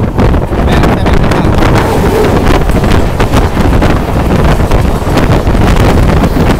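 Loud wind rushing over the microphone from a moving train, with a low rumble underneath.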